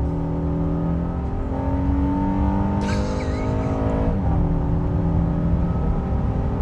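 Honda Ridgeline's 3.5-litre J-series V6 pulling under acceleration, heard from inside the cabin. Its note climbs steadily, then drops as the 9-speed automatic upshifts about four seconds in, and starts climbing again.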